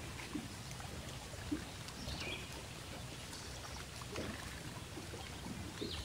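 Water lapping and splashing against the hull of a small boat on choppy water, with short irregular splashes over a steady low rumble.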